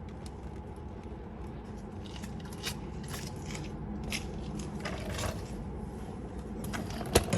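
Light scrapes and small clicks of metal as a new spin-on oil filter is threaded onto its mount by hand, over a steady low hum, with a sharp click near the end.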